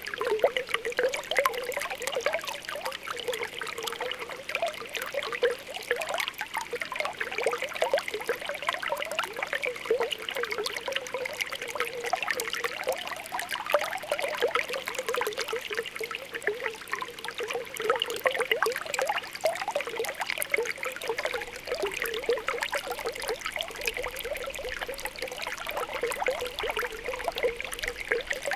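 Spring water welling up from the ground, bubbling and popping in a steady, continuous burble.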